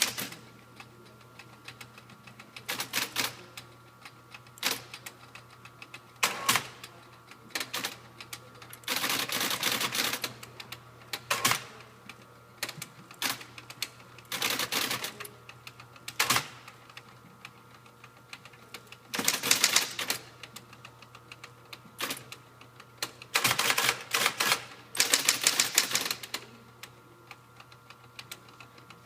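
Electric typewriter being typed on: scattered single key strikes and several quick runs of strikes lasting a second or two, over the steady hum of its running motor.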